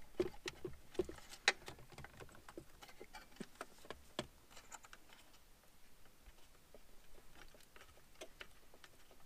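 Scattered small clicks and taps of a screwdriver and metal as screws are worked out of a car radio's metal mounting bracket, busier in the first few seconds and sparser after.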